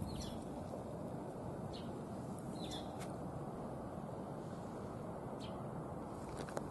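Outdoor background noise, steady and low, with a few short, high bird chirps scattered through it.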